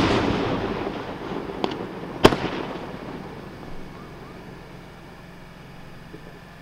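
Aerial firework shells bursting: the echoing boom of a large shell fades out over the first two seconds, with a faint crackle and then a sharp report about two seconds in that also dies away, leaving a low, steady background.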